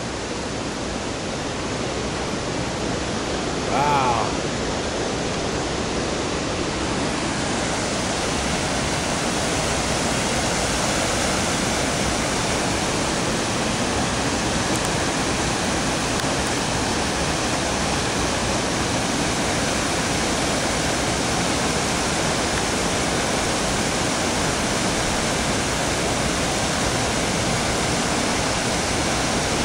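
Whitewater river rapids and small falls, a steady rush of water that grows a little louder about seven seconds in. A brief voice is heard about four seconds in.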